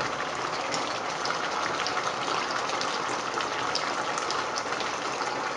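Chicken pieces and onion sauce simmering in a pan: a steady bubbling hiss with small scattered pops.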